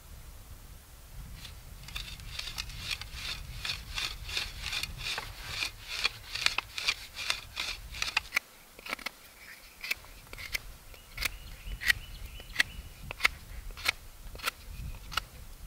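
A small hand shovel stabs and scrapes into dry, packed soil while digging out a narrow fire hole. There are quick rhythmic scrapes, about three a second, for several seconds, then sharper single strikes a little over once a second.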